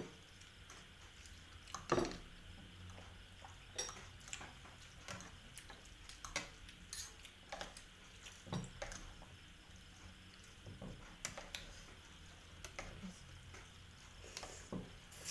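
Metal forks and spoons clinking and scraping against ceramic bowls of noodle soup as two people eat. The clicks are scattered and irregular, with the sharpest about two seconds in.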